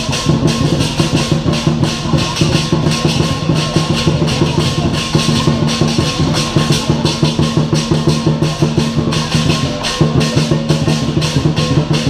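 Lion dance percussion: a large Chinese drum beaten in a fast, steady rhythm with gongs and cymbals crashing along.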